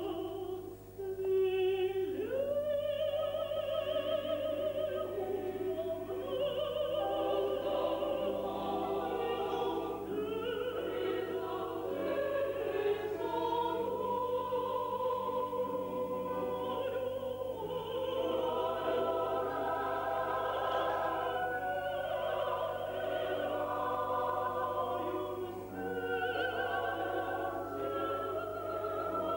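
Mixed choir of men's and women's voices singing sustained, shifting chords with vibrato.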